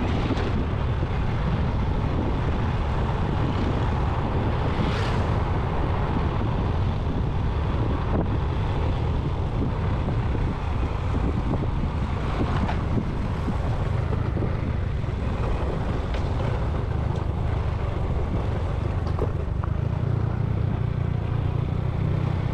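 Steady rumble of a vehicle on the move, with wind buffeting the microphone and a few faint knocks.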